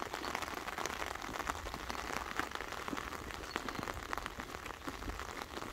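Steady rain pattering on the roof and windows of a car, a dense run of small drop ticks.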